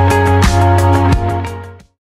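Background music with a steady beat, fading out to silence near the end.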